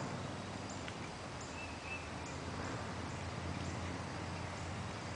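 Outdoor ambience under a steady hiss, with faint, short, high-pitched chirps repeating about every two-thirds of a second and a couple of brief lower notes about two seconds in.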